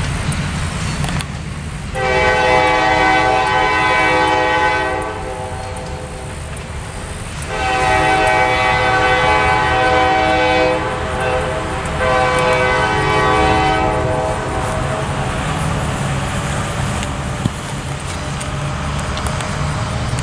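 Diesel locomotive's multi-chime air horn sounding three blasts, two long ones of about three seconds each and then a shorter one, the pattern of a grade-crossing warning. A steady low rumble runs underneath.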